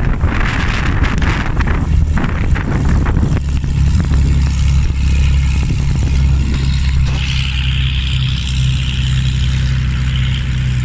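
Hawker Hurricane's Rolls-Royce Merlin V12 engine running steadily at low power as the fighter taxis away across the grass. Wind buffets the microphone for the first few seconds, then the engine's even, deep note takes over.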